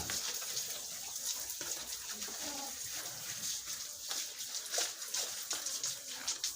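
Water splashing steadily while pigs and their pen are washed down.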